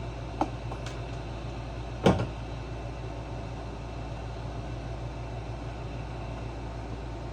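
A steady low background hum, with a light click about half a second in and a louder, sharp clunk about two seconds in, from tools and generator parts being handled during disassembly.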